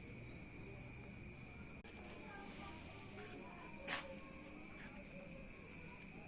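Insects chirring steadily in a high, fast-pulsing trill, with a second steady thin tone below it and one sharp click about four seconds in.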